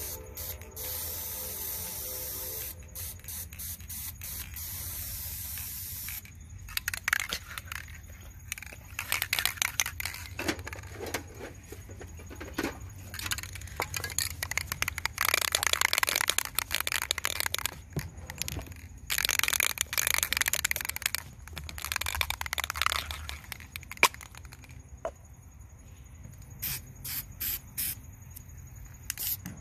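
Aerosol spray-paint can hissing in a steady spray for a few seconds, then in short spurts. A long stretch of uneven scratchy noise follows, and a run of short spurts comes near the end.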